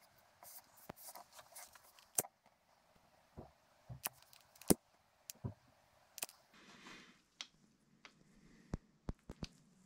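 Scattered small clicks and taps of hands handling wire leads, heat shrink tubing and a lighter, the sharpest click about four and a half seconds in.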